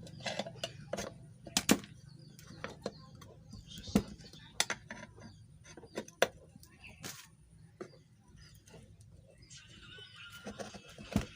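Irregular sharp metal clicks and knocks of a screwdriver working at both sides of a ceiling fan's metal body, about a dozen strikes spaced unevenly, over a low steady hum.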